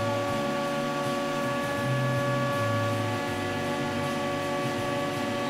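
Stepper motors of a homemade CNC router whining, with a low tone that jumps between a few pitches every half second or so as the axes move, over a steady higher whine.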